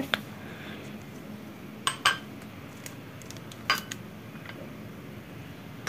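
A spoon clinking against cookware: a quick pair of clinks about two seconds in and another near four seconds, as spoonfuls of starch are added to a saucepan of milk.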